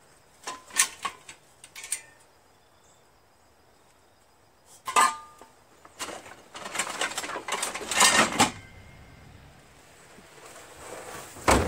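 Loose metal lawn tractor parts clanking and rattling as they are rummaged through in a plastic parts bin. A few clinks come in the first two seconds, one clank rings briefly about five seconds in, a longer run of rattling follows, and a loud knock comes near the end.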